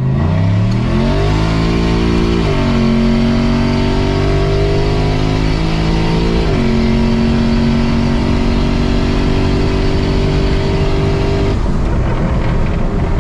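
Turbocharged 5.3-litre LS V8 of a 1993 Chevy 1500 pulling hard through the gears of its Turbo 400 automatic. The engine note climbs, drops at an upshift about two and a half seconds in, climbs again, and drops at a second upshift around six and a half seconds. It then runs nearly steady and softens near the end.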